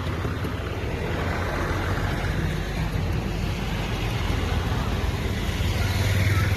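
Engines of parked buses and other vehicles running, a steady low rumble that grows a little louder near the end.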